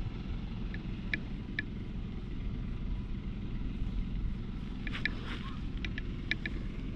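Cat purring steadily as it is stroked under the chin, a continuous low rumble.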